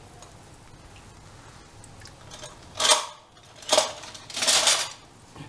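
Kitchen utensils scraping and clattering against metal pans: three short bursts about three seconds in, the last one the longest.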